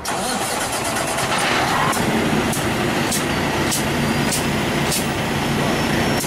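Large diesel engine starting to run harder and then running steadily, with a light click repeating about three times every two seconds.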